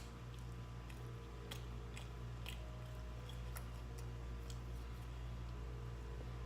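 A person chewing food: faint, scattered clicks and smacks of the mouth, over a steady low hum.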